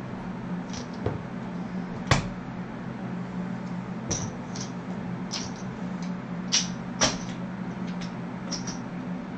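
Casino chips clicking against one another as they are picked up, stacked and moved on a craps table layout: about a dozen short sharp clicks, the loudest about two seconds in, over a steady low hum.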